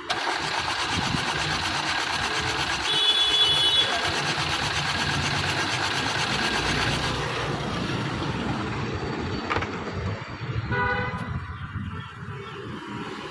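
Suzuki Swift fuel injectors firing on an injector test-and-cleaning machine: a steady spray hiss with a rapid fine pulsing, easing off after about seven seconds. Two short beeps sound, about three seconds in and again near eleven seconds.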